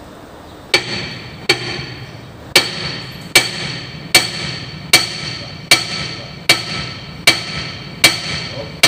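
Hammer striking steel at a dump truck's leaf-spring mount: about eleven even blows, a little under one a second, each with a short metallic ring.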